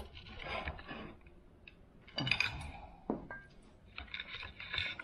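Tableware being handled: scattered light knocks, clinks and scrapes as a plate of fruit, stemmed glasses and a prosecco bottle are picked up together.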